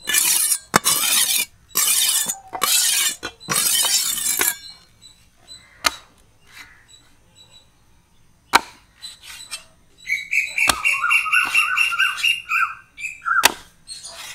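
A long kitchen knife sharpened on a whetstone: five rasping strokes of the blade across the stone, then a few light clicks. Near the end, a bird chirps in a quick run of short notes.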